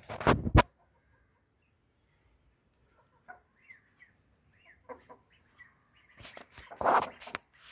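Aseel chickens clucking softly, with two louder bursts, one right at the start and one about seven seconds in.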